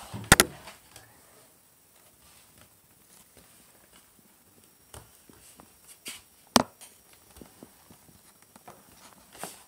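Close, sharp knocks on a wooden surface, one just after the start and another past the middle, with light tapping and scratching in between.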